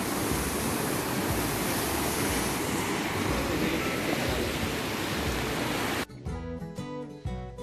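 Fast-flowing stream water rushing steadily. About six seconds in it cuts off abruptly and acoustic guitar music takes over.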